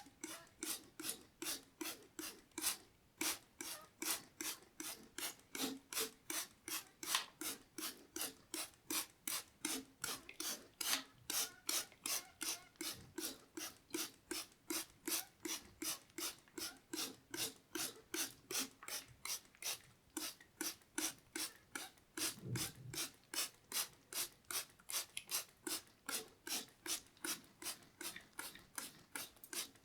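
Rhythmic rasping strokes close to the microphone, about three a second, kept up evenly, with one deeper, heavier stroke about three-quarters of the way through.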